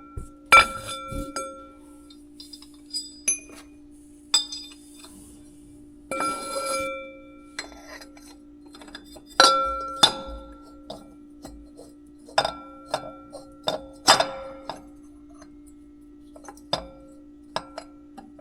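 Steel hand tools, wrenches and sockets, clinking and ringing against metal parts as bolts are fitted: scattered sharp clinks, each with a short ring, the loudest about half a second in, near nine and a half seconds and near fourteen seconds. A steady low hum runs underneath from about a second in.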